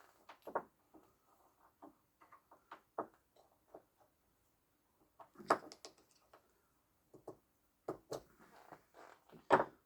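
Light clicks and knocks of small metal and plastic parts from a robotic mower's wheel motor being handled on a workbench during disassembly, with two louder knocks about five and a half seconds in and near the end.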